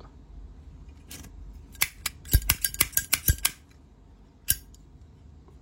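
Zippo lighter being handled: a quick run of sharp metallic clicks and clinks from the case and insert, with a single click near the end.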